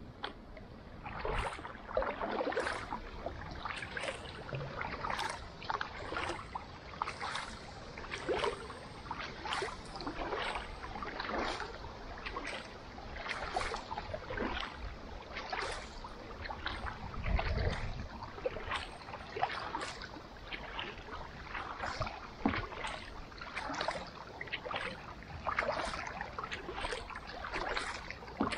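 Kayak paddling: carbon paddle blades dip into the lake water on alternate sides in steady cruising strokes, with a splash and drip about every two-thirds of a second.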